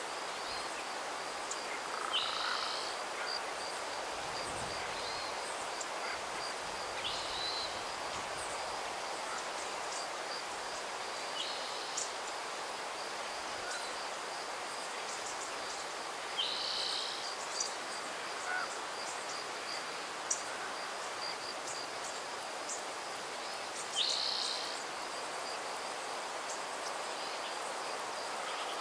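Spring hillside ambience: a steady high-pitched insect trill, a short bird call repeated five times several seconds apart, and a soft breeze hiss underneath.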